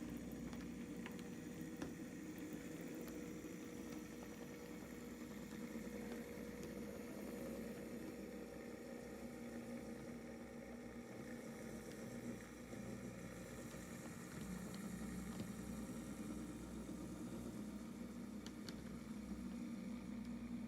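HO scale model locomotive, a CSX GP40-2, running with a steady low hum.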